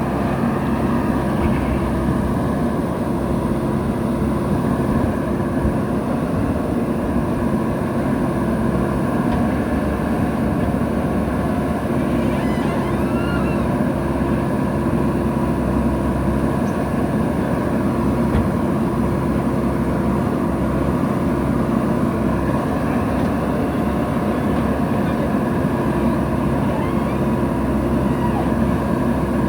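Heavy construction machine's diesel engine running steadily, with an even hum and no marked revving.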